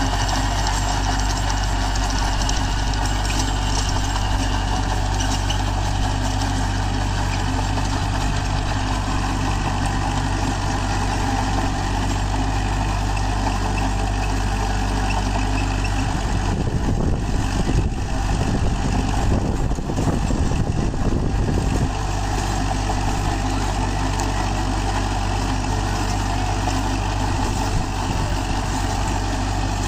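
Kubota MU4501 tractor's four-cylinder diesel engine running steadily under load, driving a rotary tiller through the soil. About halfway through, a louder, uneven low rumble lasts for several seconds before the steady running returns.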